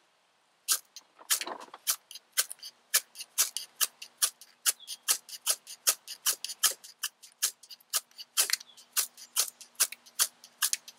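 Spine of a folding knife scraped hard down a ferro rod again and again, about four quick strokes a second, each a short sharp rasp, starting about a second in.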